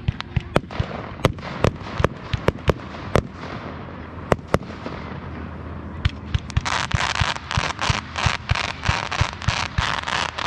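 Fireworks going off: a quick string of sharp bangs and pops, then from about six seconds in a dense run of crackling bursts.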